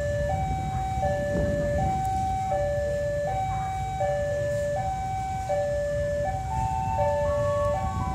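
Railway level-crossing warning alarm sounding a steady electronic two-tone pattern, a lower and a higher note alternating about every three-quarters of a second, with a few higher notes joining in near the end. Underneath is a steady low rumble from the passenger carriages rolling slowly past during shunting.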